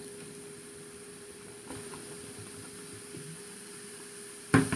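Apple cider vinegar poured onto baking soda in a bathroom sink, the mixture fizzing as a faint steady hiss over a low hum. A sharp knock about four and a half seconds in is the loudest sound.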